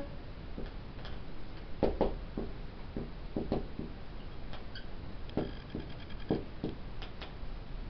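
Marker pen writing on a whiteboard: a run of short scratchy strokes and taps, with a thin high squeak about five seconds in.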